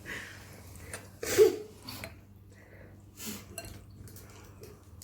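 A few scattered clinks and rustles of dishes and food being handled, the loudest about a second and a half in.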